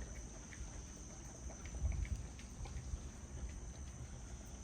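A steady high-pitched drone like insects chirring, with a low rumble underneath and faint scattered light ticks.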